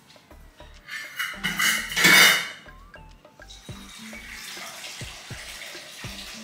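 Kitchen tap running into a glass bowl, filling it with water: a loud gush about two seconds in, then a steady rush of water. Background music with a steady beat plays underneath.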